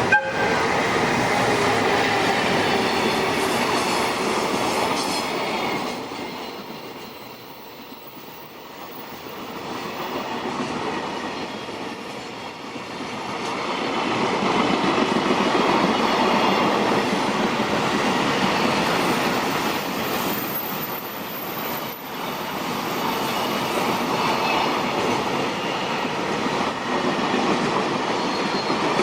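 Freight train passing close by, a long string of wagons running over the track; the noise eases off for several seconds in the middle and then builds again.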